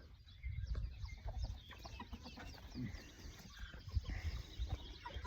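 Backyard flock of chickens clucking and chirping, many short quick calls overlapping. Low thumps and rumble on the microphone come in about half a second in and again around four seconds in.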